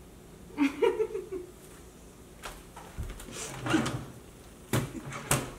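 A woman's short wordless vocal sounds, with a few sharp clicks and knocks in between.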